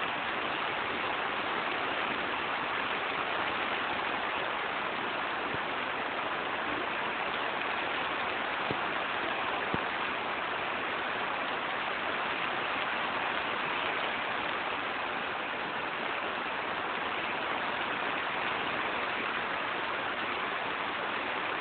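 Steady rain falling on a greenhouse: an even hiss, with a couple of faint ticks about nine and ten seconds in.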